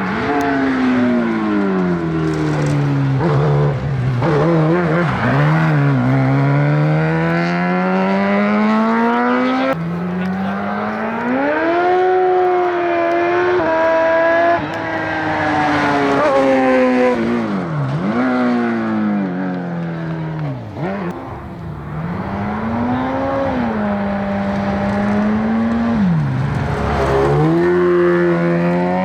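Competition car's engine driven hard on a hillclimb, its pitch climbing through each gear and dropping at the shifts, with sharp dips and quick rises where it brakes and downshifts for bends. The sound changes abruptly twice, near ten and fifteen seconds in.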